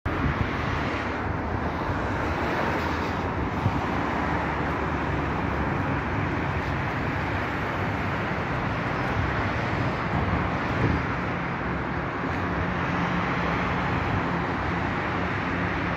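Steady hiss and rumble of road traffic, even throughout, with no single car or horn standing out.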